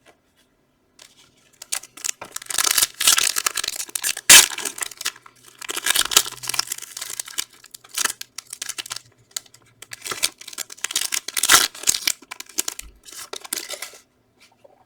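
Foil trading-card pack wrapper being torn open and crinkled by hand, in irregular crackling bursts.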